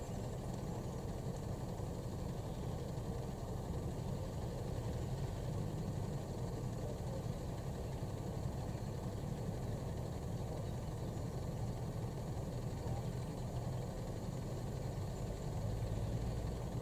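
Mercedes-Benz pigeon-transport truck's diesel engine idling steadily, a low, even rumble.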